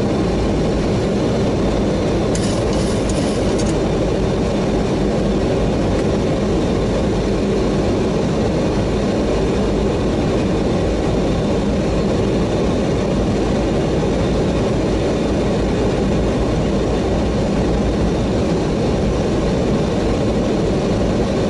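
Steady loud rumble of airflow and engines inside an airliner's cockpit on final approach, landing gear down and flaps set, in strong gusty crosswind. A brief crackle about two and a half seconds in.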